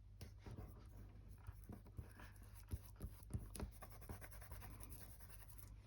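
Faint rustling of paper with light scratches and soft taps as paper pieces and stickers are handled and pressed down onto a card.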